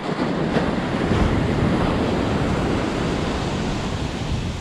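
Ocean surf washing up the beach, surging in at the start and slowly easing off, with wind noise on the microphone.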